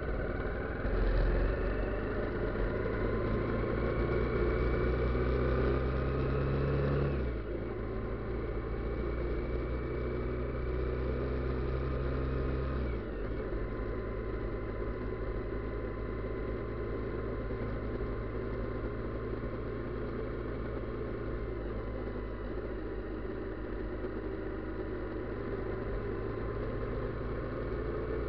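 Motorcycle engine under way, its pitch rising as it accelerates, then dropping sharply at a gear change about seven seconds in. It holds steady, drops again about thirteen seconds in, then runs at a steady cruise.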